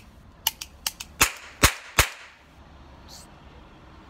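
Cheap toy cap gun firing three sharp cracks about half a second apart, a little over a second in. Several lighter clicks come just before them.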